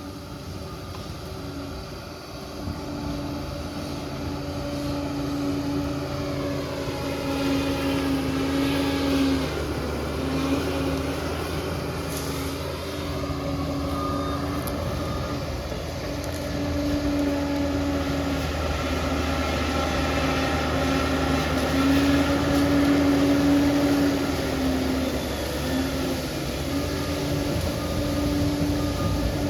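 Liebherr crawler bulldozer working, its diesel engine running steadily under changing load, the pitch and loudness rising and falling slowly as it pushes.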